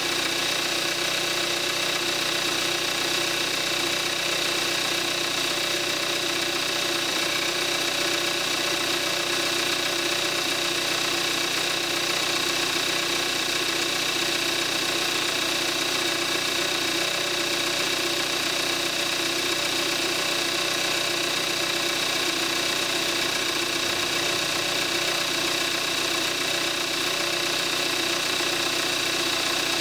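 2014 Kia Forte5's 2.0-litre gasoline direct-injection four-cylinder engine idling steadily on 5W-30 synthetic oil, heard close up over the open engine bay. It is the engine's normal running sound, with a steady high whine over the idle.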